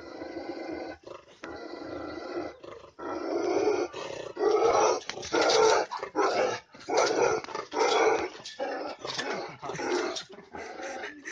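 A Himalayan sheepdog (Bhotia) growling steadily, then breaking into a run of loud, aggressive barks, about one a second, through the second half.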